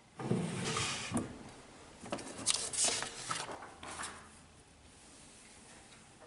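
Paper and small objects being handled on a wooden desk: rustling and sliding with a few light knocks, loudest in the first second and again from about two to four seconds in.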